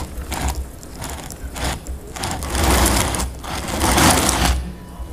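Stone slabs linked by rubber bands being dragged along a board, scraping in irregular jerks as each one sticks and slips in turn, over a steady low hum.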